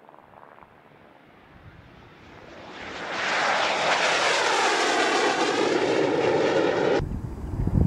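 Rolls-Royce Turbomeca Adour turbofan of the nEUROn unmanned combat aircraft demonstrator as it lifts off and climbs past: faint at first, then swelling to a loud jet roar about three seconds in, with a sweeping, phasing hiss. It cuts off sharply near the end, giving way to wind buffeting the microphone.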